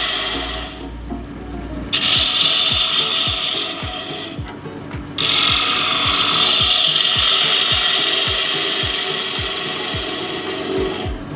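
Gouge cutting into the inside of a small spalted beech bowl spinning on a Union Graduate wood lathe: a loud, continuous rasping hiss of wood being cut. It dips twice, about a second in and again around four seconds in, as the tool eases off the wood.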